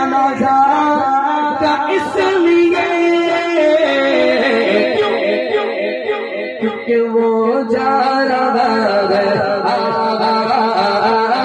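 A man's voice singing an Urdu naat (a devotional song in praise of the Prophet) into a microphone, in long, drawn-out notes that glide from pitch to pitch.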